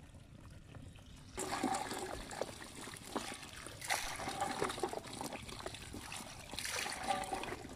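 Water and small live fish tipped from a steel bowl into a wet bamboo basket: splashing, dripping and clattering that starts suddenly about a second and a half in, with heavier pours around the middle and near the end.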